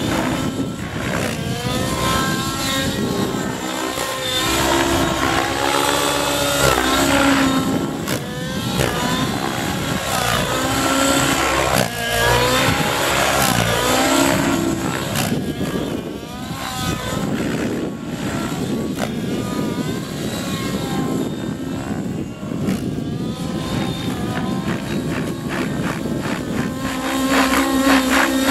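An RC helicopter's YS 91 nitro glow engine and rotor run at high revs in flight. The engine note swings up and down every second or two as fast tic-tocs and other 3D manoeuvres load it, with wide-chord blades set to 13 degrees of pitch.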